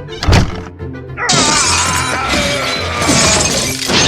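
Glass shattering, a sudden crash that rings on for a few seconds, over background music, with a thump just before it.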